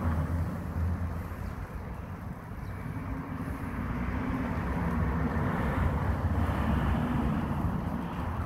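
Low outdoor rumble of road traffic and wind on the microphone; a vehicle's steady hum comes up about three seconds in and fades near the end. No sparrow chirps stand out.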